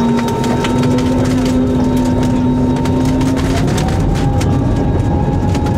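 Airliner cabin noise: a loud, steady rumble of engines and airflow, with a whine that rises in pitch about three to four seconds in.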